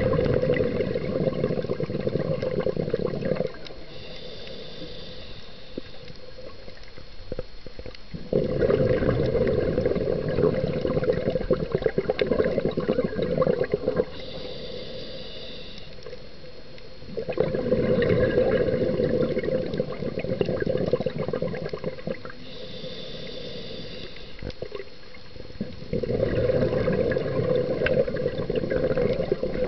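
Scuba diver breathing through a regulator underwater. Each breath begins with a short high hiss on the inhale, followed by several seconds of loud bubbling as the exhaled air escapes, repeating about every eight or nine seconds.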